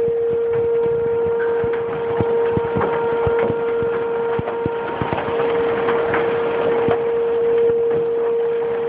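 Hailstones striking hard surfaces in many irregular sharp knocks over a steady rushing of rain and hail, while a loud steady droning tone, like a horn or a warning siren, runs underneath.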